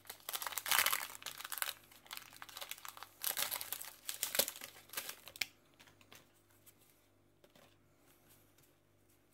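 A Pokémon Crimson Invasion booster pack's plastic wrapper crinkling and tearing as it is pulled open by hand, in several bursts that stop about five and a half seconds in.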